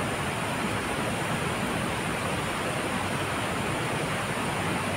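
Steady rushing of a shallow river flowing over rocks, an even, unbroken hiss.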